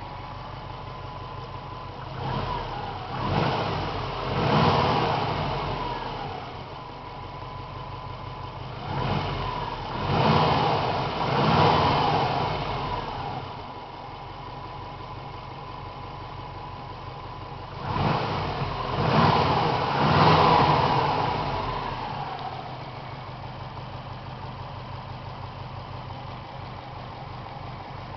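1998 Subaru GT's flat-four engine idling at operating temperature, revved in three groups of about three quick blips, each time dropping back to a steady idle.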